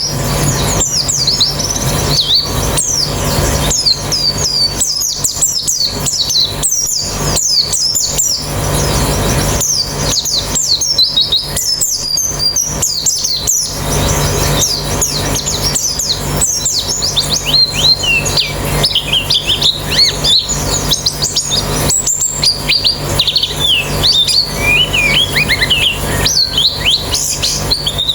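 A colony of white-eyes (pleci) singing together: fast, dense, overlapping twittering and chirping with no pauses. A steady low hum runs underneath.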